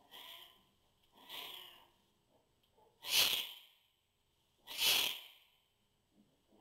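African lions in a birthing den making short, breathy sounds, four in about five seconds, the last two louder.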